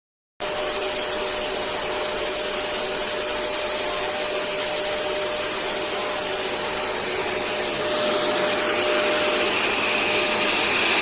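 QuickFix 20-litre 1600 W wet and dry vacuum cleaner running with a steady rushing noise and a constant whine. It starts abruptly just after the beginning and grows a little louder and higher from about eight seconds in.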